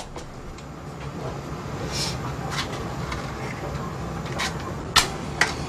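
Handling of an old metal kerosene hurricane lantern: a few sharp clicks and knocks, the loudest about five seconds in, over a steady low hum.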